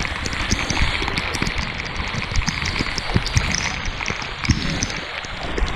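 Heavy hurricane rain falling steadily, with many sharp clicks of drops striking close by.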